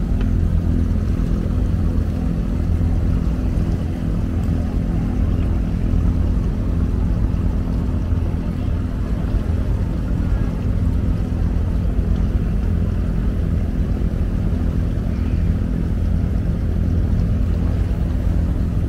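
Abra water taxi's inboard diesel engine running steadily under way, a low even drone.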